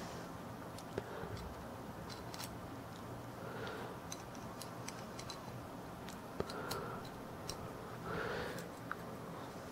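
Scattered small sharp clicks and ticks of metal lighter parts and hand tools being handled and prodded while a wick is worked into a lighter, with a few soft rustles over a faint steady low hum.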